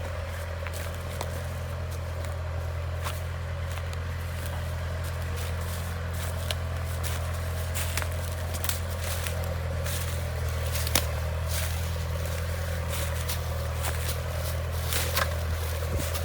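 Steady low machine hum, with scattered crunching footsteps and clicks over it.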